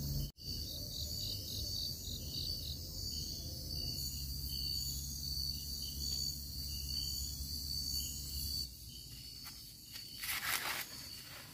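Night insects chirping and trilling steadily, with a regular pulsing chirp about three times a second. Near the end, dry rustling and tearing as a fresh ear of corn's husk is handled.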